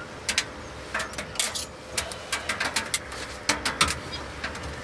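Irregular metallic clicks and clatters as the hinged glass door of a POMOLY Dweller Max 2.0 wood stove is opened and metal tongs are handled against it.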